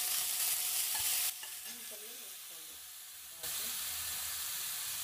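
Chopped onions sizzling in hot oil with mustard seeds in a steel kadai while a metal ladle stirs them. The sizzle dips quieter for about two seconds in the middle and then comes back.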